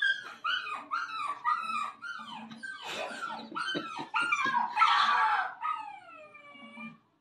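Puppy crying: a quick string of short, high whimpering yelps, a few a second, with a louder, rougher outburst about five seconds in and one long drawn-out whine near the end.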